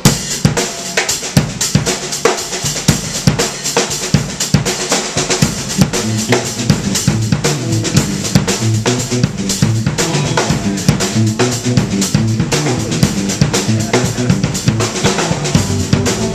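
Live rock band of electric guitar, bass guitar and drum kit playing an instrumental. The drums come in suddenly at the start, and a stepping bass line grows prominent a few seconds in.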